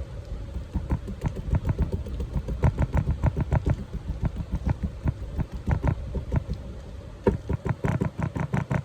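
Rapid, uneven knocks and taps, several a second, from a digging tool chipping at the hard clay block of a dig-it-out crystal excavation kit. There is a short pause near the end before the knocking picks up again.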